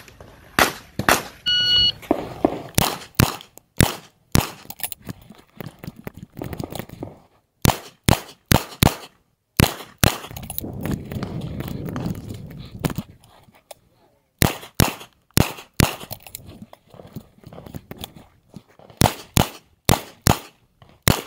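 A few gunshots, then an electronic shot-timer beep about two seconds in. After the beep a revolver fires in strings of quick shots, with a pause of a few seconds midway.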